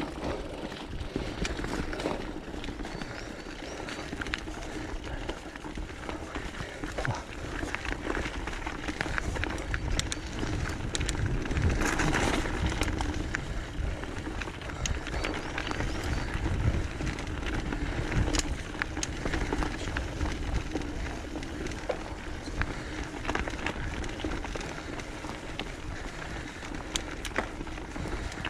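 Mountain bike rolling down a dirt and gravel forest singletrack: the tyres crunch steadily over the surface while the chain and frame rattle in sharp clicks over bumps and stones, busiest about halfway through.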